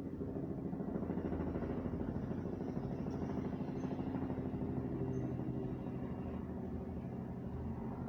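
A motor running with a steady low hum and a fast, rough pulsing.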